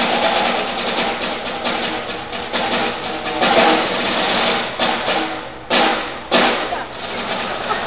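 Live percussion music: fast, dense drumming with many quick strikes, broken near the end by two sharp, loud hits about half a second apart.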